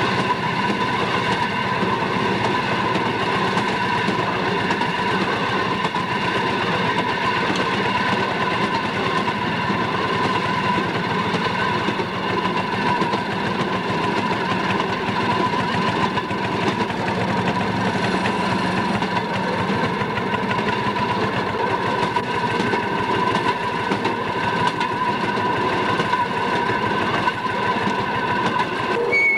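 Railroad motorcar running steadily along the track, heard from aboard: its small engine and the wheels on the rails make a continuous din with a steady high whine.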